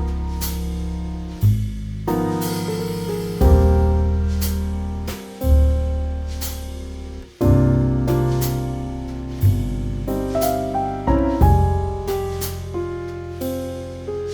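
Calm piano music: soft chords and single notes that ring and fade, over a held low bass.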